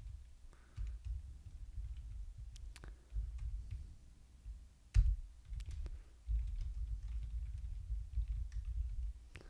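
Computer keyboard typing: irregular key clicks over a low rumble.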